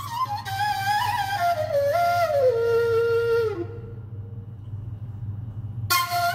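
Yamaha PSR-A5000 arranger keyboard playing a flute-type voice from its ney and flute group. A breathy solo melody steps and slides down in pitch, then breaks off about three and a half seconds in, leaving a faint low hum. A new phrase starts near the end.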